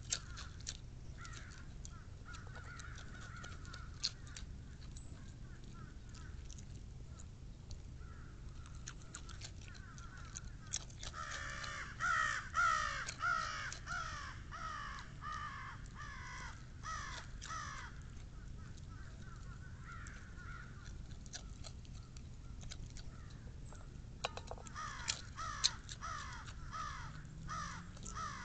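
Crows cawing in quick series of harsh calls, loudest in a long run about halfway through and again near the end, unhappy at a fox close by. Scattered sharp clicks in between.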